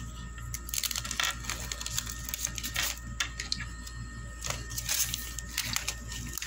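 Clear plastic zip-lock bag crinkling and rustling in the hands, in irregular bursts about a second in and again near the end.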